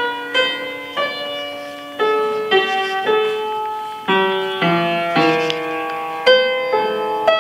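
Upright piano being played by hand: a slow melody over chords, each struck note ringing and then fading.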